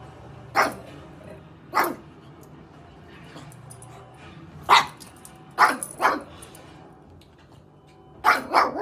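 A pug barking in about seven short, sharp single barks, spaced irregularly, with two quick pairs, one just past the middle and one near the end.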